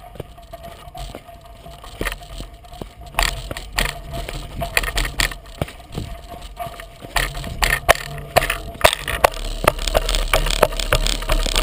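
36-inch Coker unicycle tire rolling over a dry, rocky dirt trail, with gravel crunching and frequent sharp knocks and rattles from the camera mount. It gets louder and busier about three seconds in and again about seven seconds in, with a low wind rumble.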